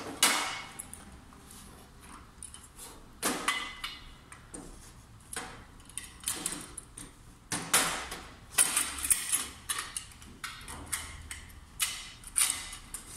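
Irregular metal clicks, knocks and scrapes as a mitre gauge and its fitting bolt are worked into the mitre slot of a Makita 2712 table saw's table.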